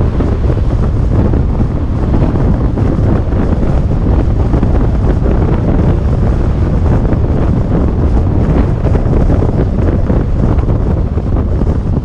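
Steady wind noise rumbling on the microphone of a camera on a moving car, over the car's road and tyre noise.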